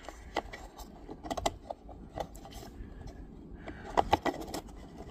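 Light plastic clicks and taps as a car's charge-port trim bezel is pressed and snapped into place by hand, scattered through with a quick cluster about four seconds in.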